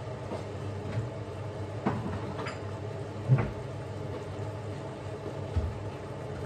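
Chicken feet adobo simmering in a frying pan, the sauce bubbling and sizzling over a steady low hum, with a few light knocks and one louder one about halfway through.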